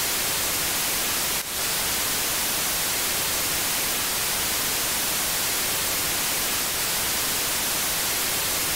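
Loud, steady white-noise hiss like TV static, switching on and off abruptly, with a brief break about a second and a half in.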